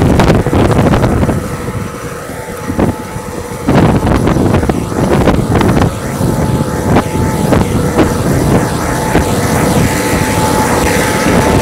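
McCormick tractor engine running steadily while pulling a plough, with wind noise on the microphone; the sound drops briefly about a second and a half in and comes back about two seconds later.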